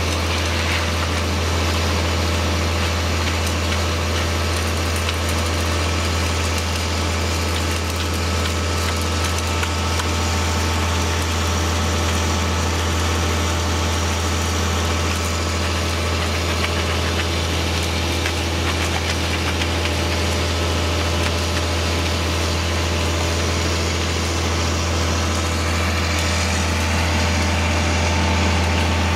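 Concrete pump truck's diesel engine running steadily with a constant low hum.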